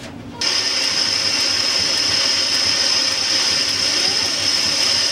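Monarch metal lathe switched on about half a second in, its four-jaw chuck spinning up and the geared headstock running steadily with a high-pitched whine. The spindle is freshly reinstalled in the lathe's rebuild.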